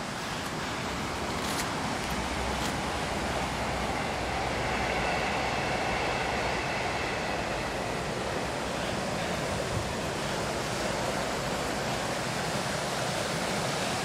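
River water rushing steadily, an even, unbroken hiss of flowing water.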